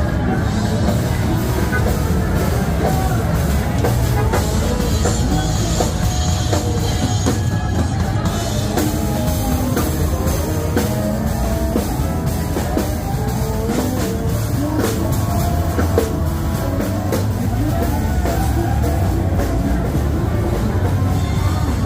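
Loud live rock band music with a drum kit and guitar, playing steadily, with more than one band's music running together.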